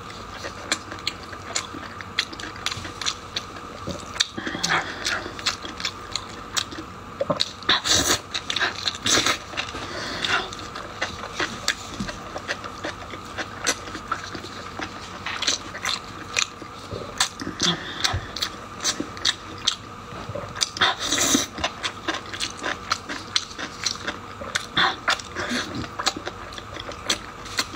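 Close-miked eating of pork-skin rolls: biting and chewing, heard as many irregular short clicks and smacks.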